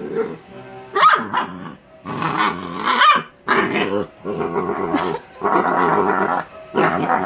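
Yellow Labrador puppy grunting and growling in play, happy grunts rather than aggression. The sounds come in a run of drawn-out bursts, a couple of them rising in pitch like yips.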